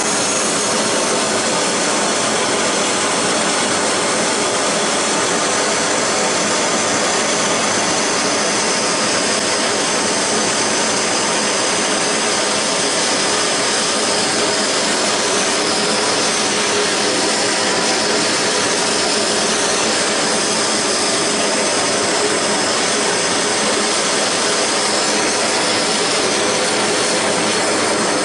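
Blowtorch flame burning steadily with a loud, even rushing hiss.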